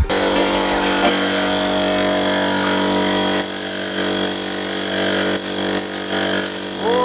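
Air compressor running steadily with a constant hum, and from about halfway in, short repeated bursts of hiss from a spray gun finishing a wooden headboard.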